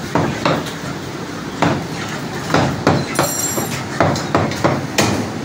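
Cleaver chopping fresh lamb on a wooden log chopping block: a series of irregular sharp chops, about a dozen. A brief high ringing tone sounds just past three seconds in.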